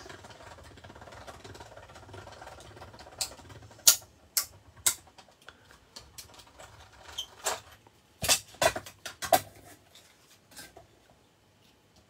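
Small hand-cranked die-cutting machine being turned, a faint scratchy grinding as the plate sandwich rolls through, with a scattering of sharp plastic clacks from about three seconds in as the cutting plates come out and are handled.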